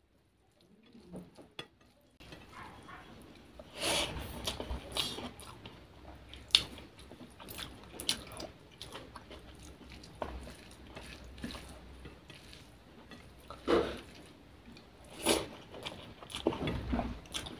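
Close-miked eating sounds of a person chewing handfuls of rice and hilsa fish curry, with wet smacking clicks and squishes of mouth and fingers, starting about two seconds in.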